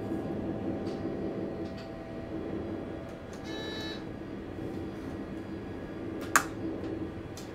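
Steady hum and rumble inside a train's driver's cab, with a brief high beep about three and a half seconds in and a single sharp click near the end, the loudest sound.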